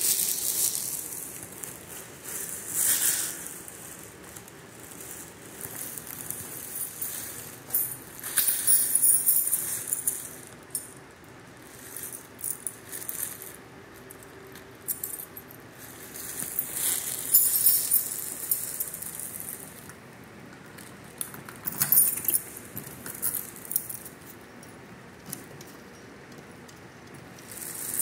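Bursts of light, high-pitched jingling and rattling every few seconds, some with a quick run of small ticks, over a faint steady hum.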